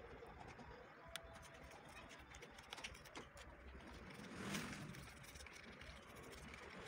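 Faint clicks and light rustling of small plastic cups being handled while pigment is stirred, over a low steady background rumble, with a brief louder rustle about four and a half seconds in.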